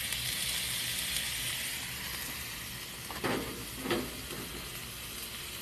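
Steak pieces and sliced onions sizzling on a hot griddle as oil is sprayed onto it, a steady hiss. Two short louder sounds come about three and four seconds in.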